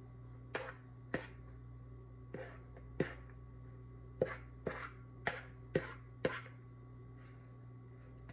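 A spoon knocking against the side of a cooking pot while stirring soup: about nine short, sharp clinks at irregular intervals, over a steady low hum.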